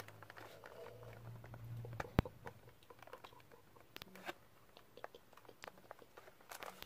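Plastic blister pack of a Beyblade toy handled close to the microphone: scattered crinkles and small clicks, with one sharper click about two seconds in.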